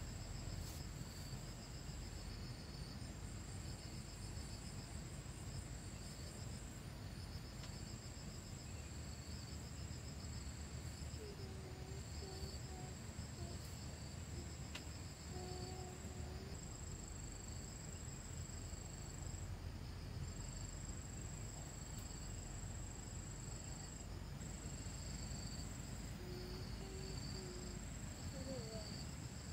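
Crickets and other insects chirring: a steady high note with brief gaps, and beneath it a rapidly pulsing trill, over a low background rumble. A few faint short calls come in about halfway through and again near the end.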